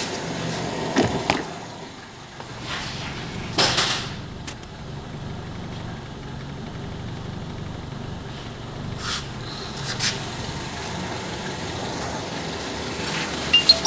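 Carbureted car engine idling steadily at about 1,000 rpm, with a few short knocks and clicks over it.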